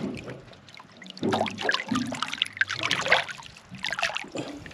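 Water splashing and trickling in uneven surges as a large queenfish is held and swum in the sea beside the boat to revive it before release.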